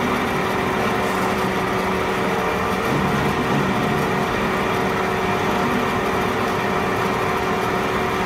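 MIC-100L vacuum emulsifying mixer running steadily, an even mechanical hum with a constant tone, while its tank is held under vacuum.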